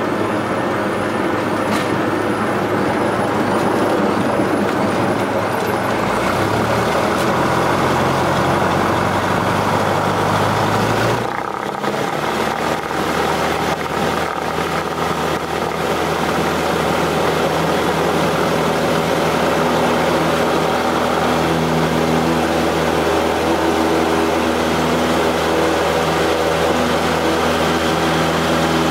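A Cessna 172's piston engine and propeller running steadily, heard from inside the cabin. About a third of the way in the engine note changes and then holds steady, as power is set for the takeoff roll.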